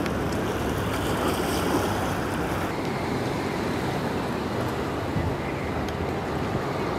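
Steady outdoor harbourside background noise with wind on the microphone. The hiss drops a little about two and a half seconds in.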